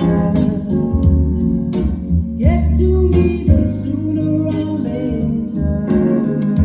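A song with singing played loud through a home speaker box with a 10-inch Taramps T-600 subwoofer and 6-inch FH-300s speakers, with heavy bass and a steady drum beat.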